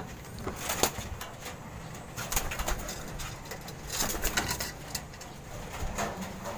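Racing pigeons cooing in the loft, with scattered brief rustles and scuffs every second or two.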